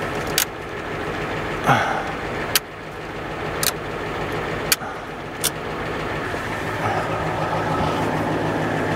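Ford Econoline van's engine idling, heard from inside the cab, sounding pretty good. About five sharp clicks come from the dashboard heater controls being worked.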